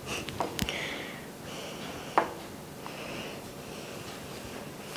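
Close-miked eating and handling sounds: soft wet noises from the agar jelly and a wooden spoon, with a few sharp clicks about half a second in and one a little after two seconds.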